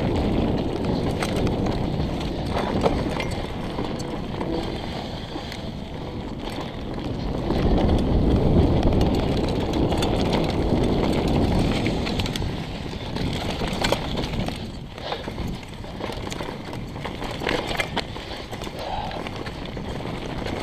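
Mountain bike rolling fast down a rocky dirt trail: tyres crunching over loose gravel, with the bike rattling over bumps and a low rumble of wind on the camera microphone. It gets louder for a few seconds about a third of the way in.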